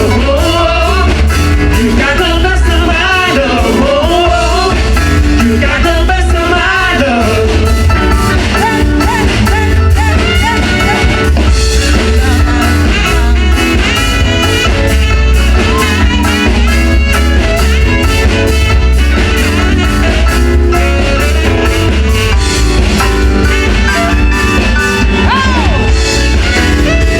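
Band playing Motown music: singing over electric guitar and a strong bass line with a steady beat.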